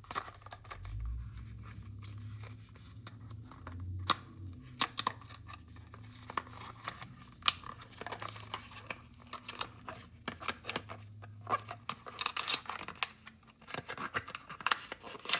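A small product box and its packaging being opened by hand: irregular scratching and rustling with many sharp clicks.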